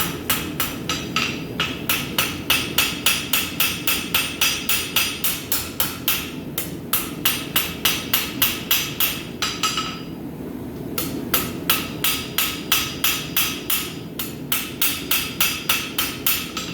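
Rounding hammer striking hot steel on an anvil in quick, even blows, about three or four a second, each with a short ring; the hammering pauses briefly twice, the longer break about ten seconds in. The blows are setting the center vein down the middle of a forged heart.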